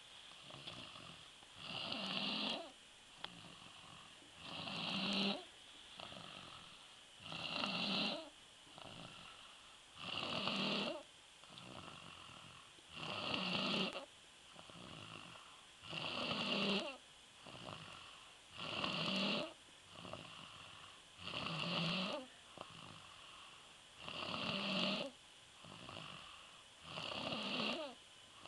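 A sleeping boy snoring steadily, with a loud snore about every three seconds and quieter breathing between the snores.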